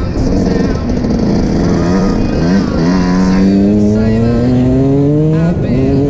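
Dirt bike engines revving: the pitch wavers and blips through the first half, then climbs steadily for a couple of seconds under acceleration, with a second, lower engine note running beneath it from about four seconds in.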